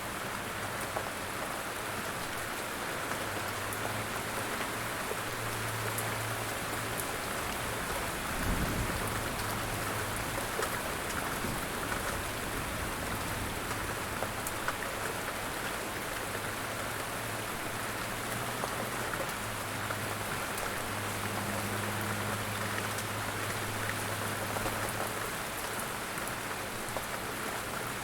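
Light rain falling steadily, an even patter of fine drops. A faint low hum comes and goes, and a brief low thump sounds about eight seconds in.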